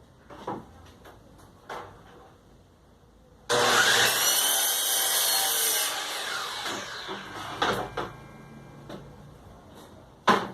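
Electric power tool on wood starting abruptly about three seconds in, running with a high whine for about two and a half seconds, then winding down in falling pitch after it is switched off. A few short knocks from handling the work come before and after.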